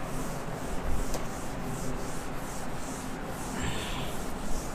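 Whiteboard duster rubbing back and forth across a whiteboard, erasing marker writing, in even strokes about two a second.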